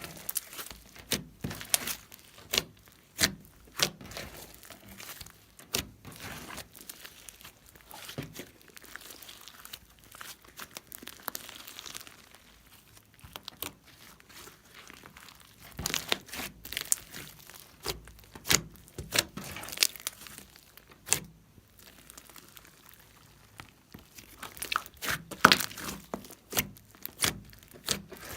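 Hands working slime, making repeated sharp pops and clicks with crinkly, crackling handling noise, busiest near the start, in the middle and near the end.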